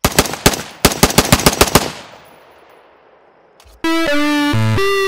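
AR-15 rifle fired rapidly: three quick shots, a brief pause, then a fast string of about seven more, with the report echoing away over about a second. About four seconds in, synthesizer music starts abruptly.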